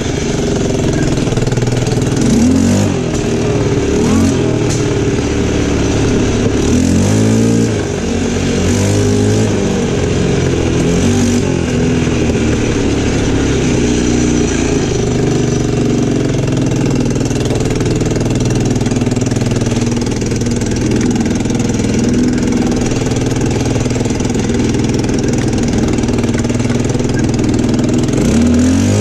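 ATV engine running under way, its note rising and falling with the throttle several times and climbing sharply near the end, with occasional knocks from the machine over the rough track.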